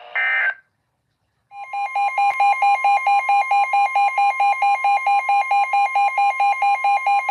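Emergency alert tones from a NOAA Weather Radio broadcast. A short data burst ends the previous message, then after a brief gap a steady high warning tone sounds together with a pulsing beep about four times a second. This signals the start of a new alert.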